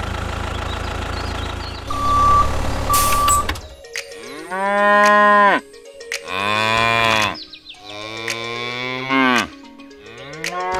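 An engine idling for about three and a half seconds, with two short beeps near its end, then a cow mooing four times in a row, each moo a long call that rises and falls.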